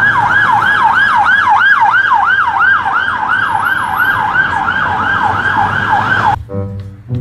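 Police van siren in fast yelp mode, its tone sweeping quickly up and down about three times a second, then cutting off about six seconds in.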